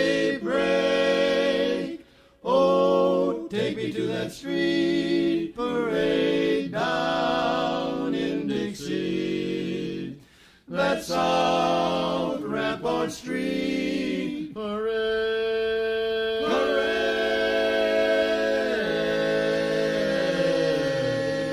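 Barbershop quartet singing a cappella in four-part close harmony: short chords in quick phrases, then one long held final chord from about two-thirds of the way in, with the bass voice sliding down near the end.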